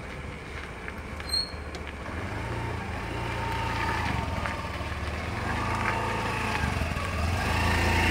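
A motorcycle engine running close by, getting steadily louder as it draws near, with a brief sharp click about a second and a half in.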